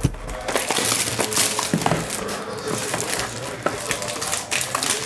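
A cardboard trading-card hobby box being opened and the foil wrapping inside rustling and crinkling under the fingers, with many small crackles and clicks.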